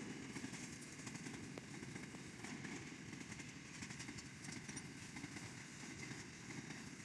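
Empty grain hopper wagons of a freight train rolling past on the rails: a steady low rumble of steel wheels on track, with a few faint clicks.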